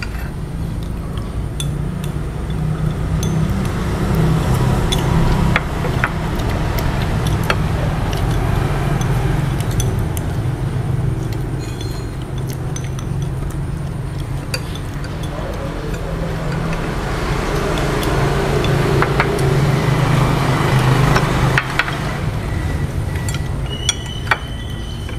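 Chopsticks and spoons clicking and clinking against ceramic bowls and plates now and then, over a steady low hum.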